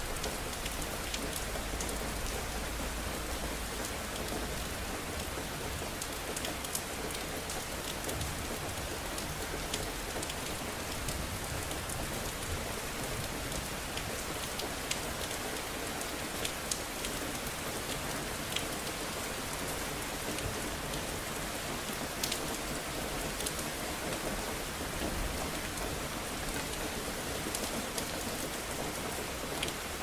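Steady rain falling on hard surfaces, with scattered sharp drip clicks standing out. A low rumble of thunder dies away in the first few seconds.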